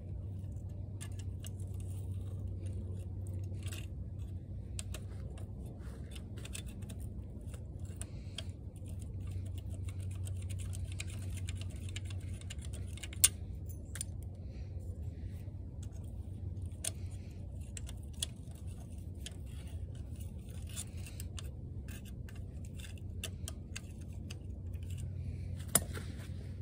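Pliers pulling and working metal pieces out of an engine: scattered light metal clinks and scrapes, with a sharp click about halfway through and another near the end, over a steady low rumble.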